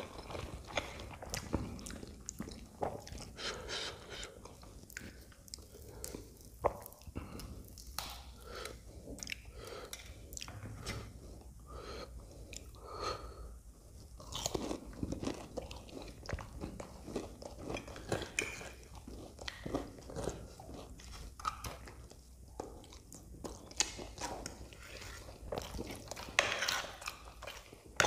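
Close-miked chewing and biting: wet mouth sounds from eating soft Maggi noodles, with crunchy bites into a fried aloo matar samosa's pastry crust.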